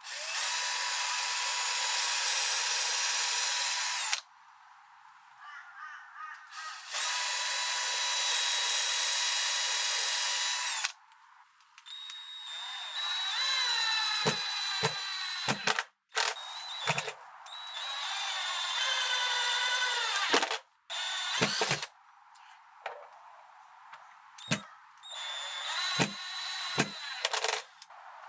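Power drill boring pilot holes in two steady runs of about four seconds each, then driving the lock's screws in a series of short bursts, its whine rising and falling as the trigger is squeezed and eased.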